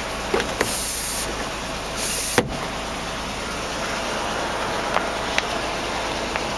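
2004 Land Rover Freelander's engine idling, a steady hum heard from inside the cabin. There are a few light clicks, and a sharp click about two and a half seconds in.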